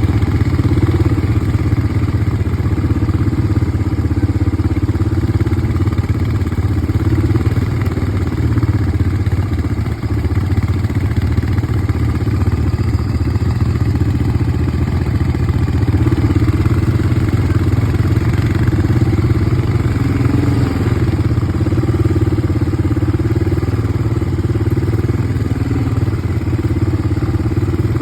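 ATV engine running steadily while the quad is ridden, with small rises and falls in speed and a brief dip about ten seconds in.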